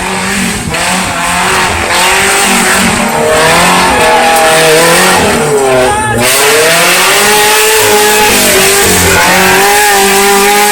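Off-road vehicle engine revving hard, its pitch rising and falling again and again as the throttle is worked.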